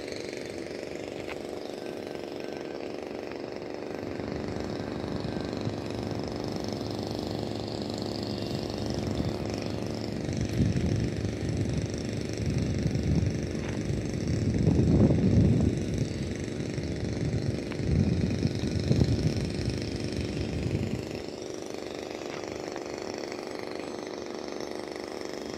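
Radio-controlled helicopter flying on its first test flight, a steady rotor-and-motor hum with a faint high whine. A gusty low rumble swells and fades in the middle stretch, loudest about halfway through.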